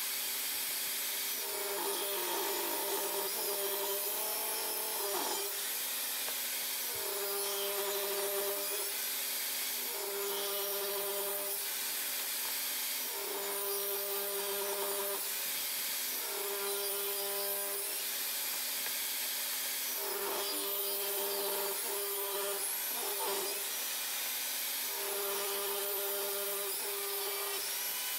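Table saw running steadily while pine is ripped into thin strips, one cut after another about every two to three seconds. On each cut the blade chews through the wood and the motor note dips slightly under load, then recovers between passes.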